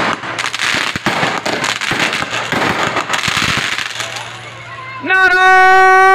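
Aerial fireworks crackling and popping in quick, irregular bursts, with voices underneath. About five seconds in, a loud, steady held note with many overtones starts up and becomes the loudest sound.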